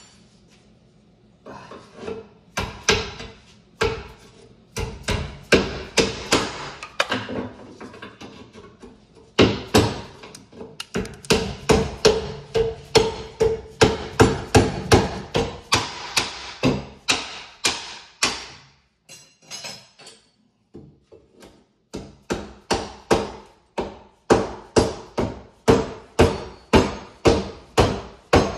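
A hammer striking repeatedly in steady runs of about two blows a second, with a short break about two thirds of the way through.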